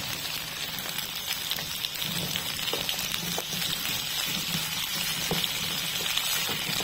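Butter sizzling and crackling as it melts in a hot frying pan of scored chestnuts. A few light knocks come from a silicone spatula stirring the chestnuts.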